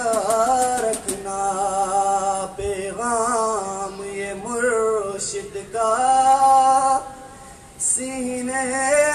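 A young man singing an Urdu devotional tarana solo, holding long notes with wavering ornaments, with a short pause about seven seconds in.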